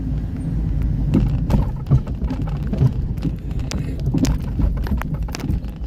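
Car engine and road rumble heard from inside the cabin while driving slowly in city traffic, with scattered short, sharp ticks over it.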